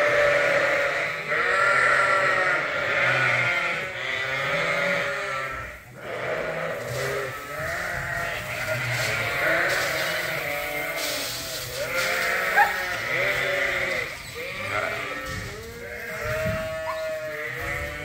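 A flock of hungry Suffolk sheep bleating over one another, calling for feed that has not yet come. The din is loudest in the first few seconds and eases somewhat after about six seconds.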